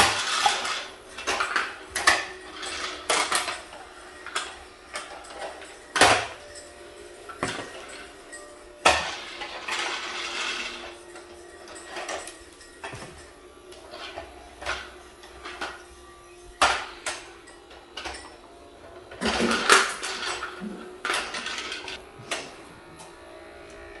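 Plastic toy Dyson upright vacuum knocking and clattering against a tiled floor as it is pushed about, in irregular sharp knocks, several of them loud. Underneath runs a faint steady hum from the switched-on toy's battery motor.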